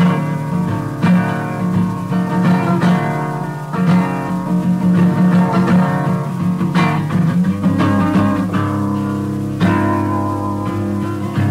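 Acoustic guitar music, notes plucked in a steady flowing pattern, with lower bass notes joining about eight seconds in.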